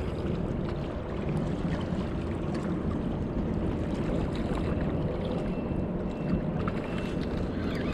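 Steady low rumble of wind and river water, with a few faint ticks.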